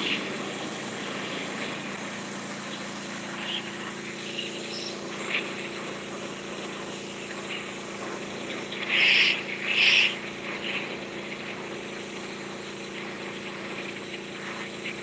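Simpson 4200 PSI gas pressure washer running steadily, its engine hum under the hiss of the high-pressure jet striking concrete steps. Two brief louder surges of hiss come about nine and ten seconds in.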